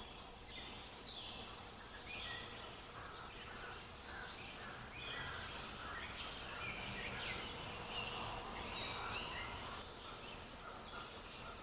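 Several small birds chirping and singing at once, many short overlapping notes, over a steady background hiss.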